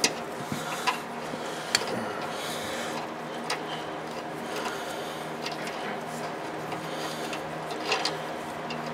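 Wrench tightening the castle nut on a steering centerlink joint: scattered metallic clicks and scrapes of the tool on the nut, over a steady low hum.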